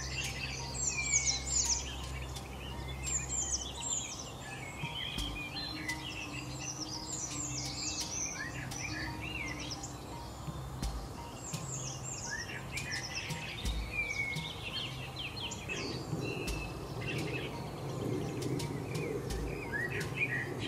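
Several songbirds chirping and singing at once, with many quick falling notes overlapping, over a low steady hum.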